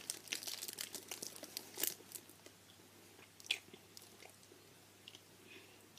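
A person chewing Zombie Chews, a firm, sticky taffy candy that is hard to chew: a run of small wet clicks and crackles for about two seconds, then only a few, with one sharper click about three and a half seconds in.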